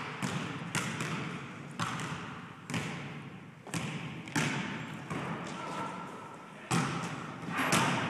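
Basketball being dribbled, sharp bounces at an uneven pace of roughly one a second.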